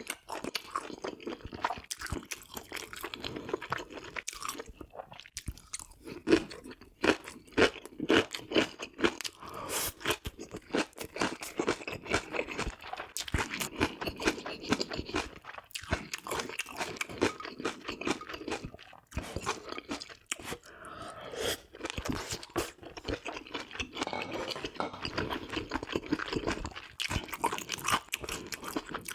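Close-miked chewing of Korean offal dishes, beef intestine hot pot and boiled pork offal: steady wet, crackling chews and bites, with a run of louder snappy bites about six to nine seconds in.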